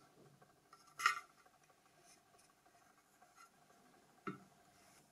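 Quiet handling of a boxed tool kit: a crisp click or scrape about a second in, then a soft knock a little after four seconds, with faint rubbing in between.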